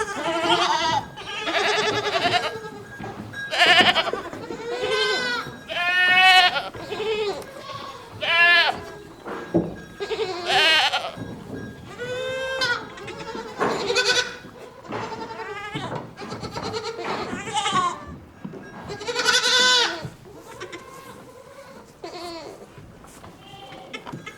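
Several goats bleating over and over, calls of different pitches following one another every second or two, many with a wavering quaver.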